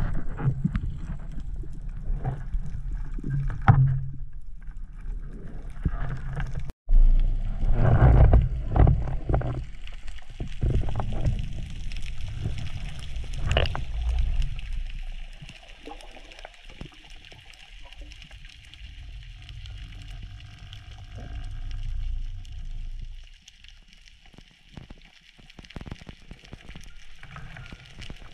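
Muffled underwater sound picked up by a camera in a waterproof housing: a low rumble of water moving past as the diver swims, with scattered knocks and clicks. It is busier for the first half and quieter after that.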